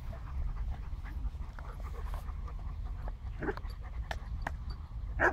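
Dogs play-fighting, a Jack Russell terrier and an Alabai wrestling with a black dog, giving short vocal noises; the two loudest come about three and a half seconds in and just before the end.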